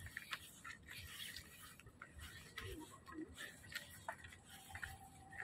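Faint footsteps on a bamboo-slat boardwalk: light, irregular clicks and knocks of the slats underfoot.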